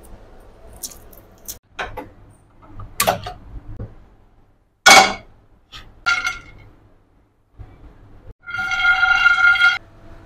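Kitchen clatter: scattered clicks and knocks, then a loud clank of a metal kadai about five seconds in. Near the end, raw peanuts rattle in the pan for about a second and a half while the metal rings.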